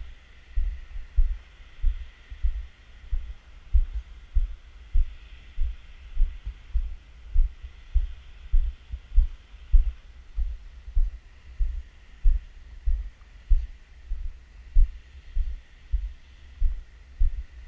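Dull low thumps about twice a second, the footfalls of someone walking while carrying the camera, carried through its body and mount. A faint steady hiss runs underneath.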